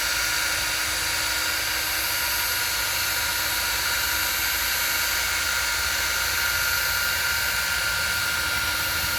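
Powered driver turning a helix ground screw into the ground: a steady mechanical whine with several high tones over a low hum, unchanging throughout.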